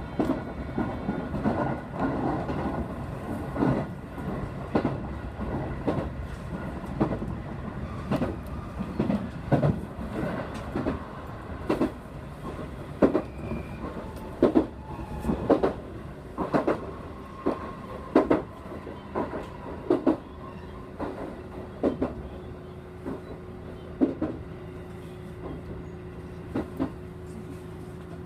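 Electric train heard from inside the car, its wheels clicking over rail joints, the clicks spreading out as the train slows into a station. Over the last few seconds a steady hum sets in beneath them.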